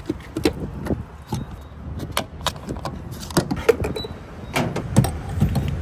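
A string of irregular clicks and knocks from refuelling a car by hand: the fuel filler door being pushed open and the gas pump nozzle being lifted from the pump, with the loudest knock about five seconds in.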